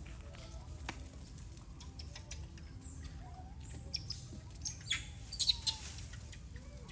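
Short animal chirps and squeaks over a low steady background, with scattered sharp clicks and rustles that bunch together a little past the middle.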